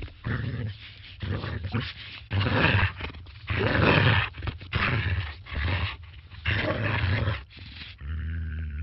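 A dog barking and growling in a quick run of loud separate bursts, some short and some drawn out.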